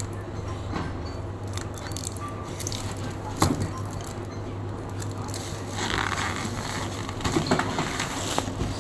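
Handling noises from packaging and a returned mini fridge: scattered clicks and knocks with a rustle about six seconds in, over a steady low hum.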